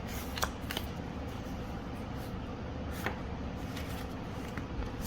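Foil booster pack being handled, giving a few short sharp crinkles and clicks over a steady low background hum.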